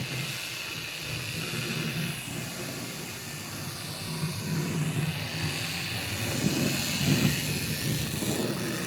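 Fleischmann HO-scale BR80 model locomotive running under power: its small electric motor and gearing whir steadily with a faint hiss, the wheels running on the rails at the loco's top speed, which is very slow.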